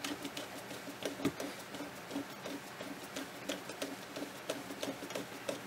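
Faint small metallic clicks and ticks as a screw is turned down by hand into a Delco-Remy 10Si alternator's end frame, through the brush holder and voltage regulator.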